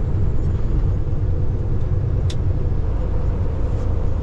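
Steady low rumble of a Peterbilt semi-truck's diesel engine and road noise, heard from inside the cab, with a single faint click a little past halfway.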